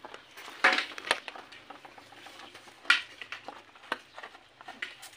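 Dogs eating from a plastic bowl on the ground: a series of sharp clicks and knocks as their muzzles and teeth hit the bowl, the loudest about a second in and again about three seconds in.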